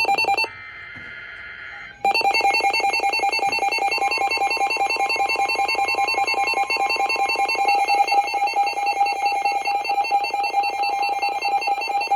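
Weather radio alert for a Severe Thunderstorm Warning: a brief burst of rapid electronic beeping, then about a second and a half of the buzzing SAME header data burst. From about two seconds in, a loud, rapidly pulsing electronic alarm beep sounds continuously.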